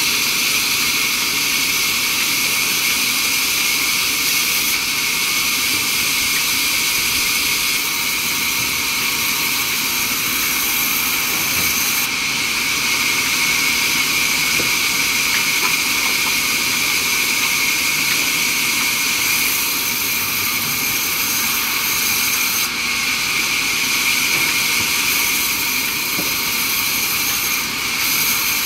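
Sawmill saw machinery running steadily, a loud, continuous high-pitched hiss and whine.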